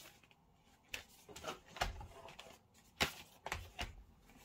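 Disc cases being handled in a box set: a handful of short knocks and rustles, the loudest about two and three seconds in.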